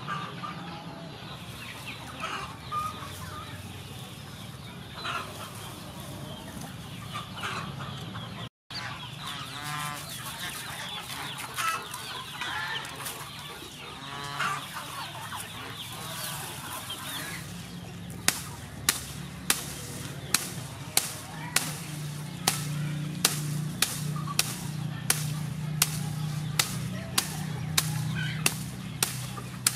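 Chickens clucking in the first half. From a little past the middle, a knife cutting through lemongrass stalks, with sharp, regular cuts nearly two a second.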